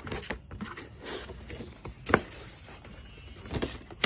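Cardboard and paper watch-box packaging being handled: rustling and scraping, broken by several sharp taps and knocks, the loudest about two seconds in.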